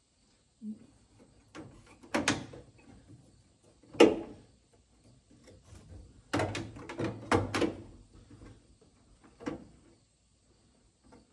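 Sheet-metal knocks and rattles as a car's floor patch panel is handled and clamped along the rocker: a sharp metallic knock about four seconds in, and a quick run of clatters from about six to eight seconds.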